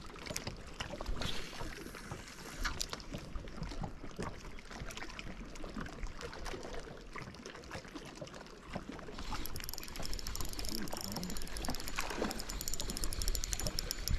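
Water lapping against a small boat. From about nine seconds in, the fast, fine ticking of a spinning reel being cranked to retrieve the line.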